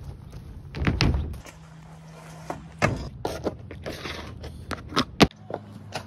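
Grind shoes knocking and scuffing as they land on and slide along park benches and playground equipment: a string of sharp knocks and thuds with short scrapes between them. The loudest knock comes about five seconds in.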